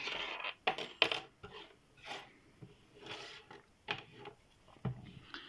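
Light, irregular metal clicks, clinks and rubbing from handling lock-picking tools and a small padlock while changing to a hook pick.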